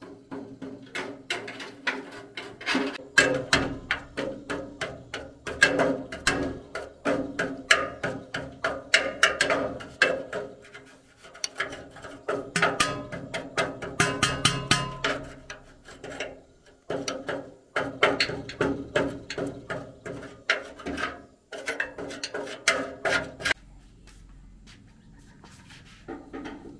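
Metal hand tool scraping and knocking against the rusty steel frame of a rice huller in quick, irregular strokes, with a few short pauses. The strokes stop a few seconds before the end.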